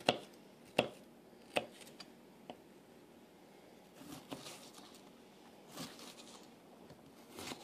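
A paring knife dicing an onion on a plastic cutting board: about five sharp knocks of the blade on the board in the first two and a half seconds, then softer cuts through the onion.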